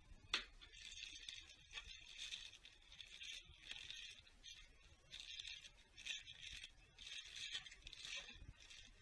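A clear plastic bag crinkling and rustling in repeated short bursts as it is handled and pulled from a cardboard box, with a sharp click about a third of a second in.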